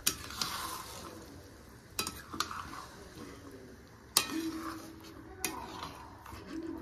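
Flat metal spatula stirring chicken curry in a steel kadhai, scraping and knocking sharply against the pan about five times, over the low sizzle of the curry frying.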